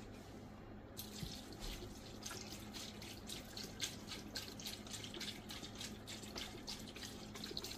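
Beef broth pouring from a carton into an electric pressure cooker's metal pot onto sliced vegetables: a faint, steady splashing that starts about a second in.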